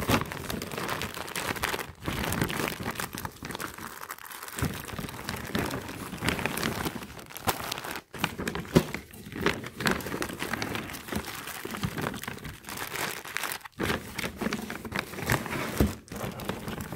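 Tissue paper and a plastic shopping bag crinkling and rustling in a cardboard box as hands rummage through them and pull them out. The crackle goes on throughout, with many small sharp crackles.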